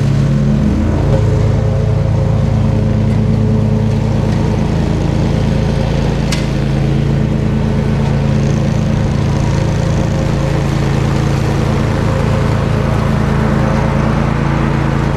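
Bad Boy ZT Elite zero-turn mower's engine running steadily while mowing, settling to a new steady pitch about a second in.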